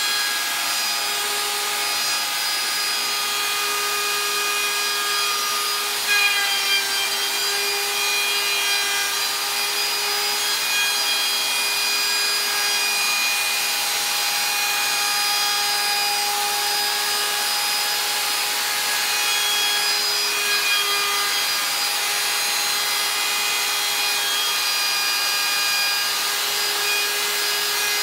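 Handheld DeWalt electric router running with a steady high whine, its bit cutting into the edge of a high-density polyethylene cutting board.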